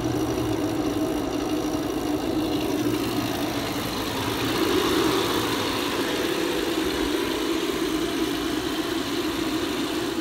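Electric vacuum pump running steadily while pulling a vacuum on an air-conditioning system.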